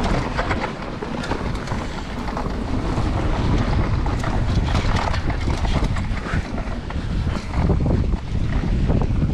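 Wind buffeting a GoPro's microphone during a mountain-bike descent, over a steady low rumble of tyres on dirt and the frequent clatter of the bike over bumps.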